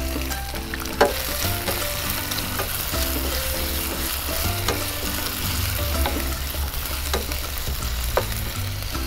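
Chicken pieces and crushed garlic and ginger sizzling in hot oil in a frying pan, stirred with a metal spoon that clicks against the pan now and then. Soft background music plays underneath.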